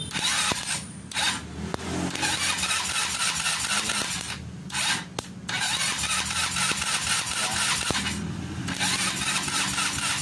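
Motorstar 150 motorcycle engine cranked by its starter in three long stretches with short breaks between them, without starting. The cranking spins the engine for a spark test at the plug cap held against metal.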